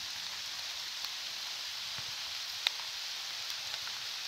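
Heavy rain falling steadily on forest foliage, an even hiss, with one sharp tick about two and a half seconds in.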